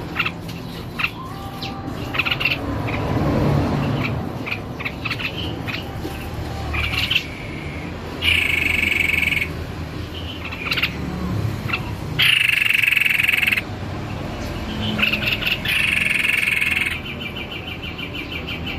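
White-bibbed babbler (tepus leher-putih) singing in full voice: short chirps, then three loud ringing phrases of about a second each, and a rapid trill near the end.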